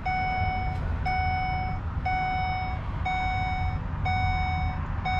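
Ford E-450 dashboard warning chime beeping about once a second: five even, steady tones, each held most of a second, with the ignition switched on and the engine not yet running.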